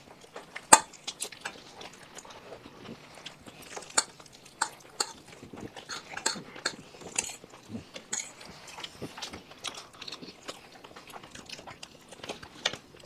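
Eating at a table: scattered short clicks and smacks of chewing and of food and cutlery against plates, the sharpest click about a second in.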